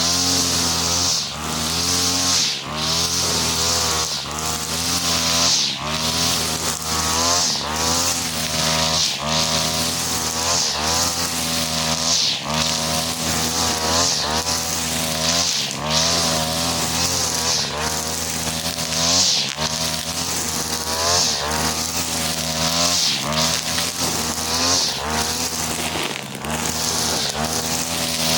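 A 43cc two-stroke brush cutter running hard, spinning a four-line trimmer head of 2.5 mm nylon line through grass. The engine speed dips briefly every second or two as the line bites into the growth, then recovers, over a constant hiss of whipping line and cut grass.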